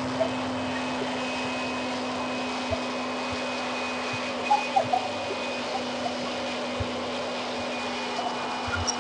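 Steady whirring noise with a constant low hum, like a fan or blower motor running, with a few faint clicks and knocks.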